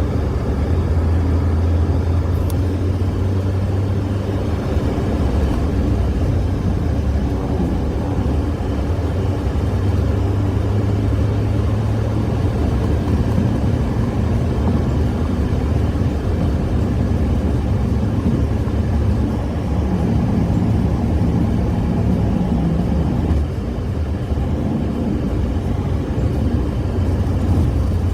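Steady engine and road noise of a vehicle being driven, a continuous low rumble that dips slightly about 23 seconds in.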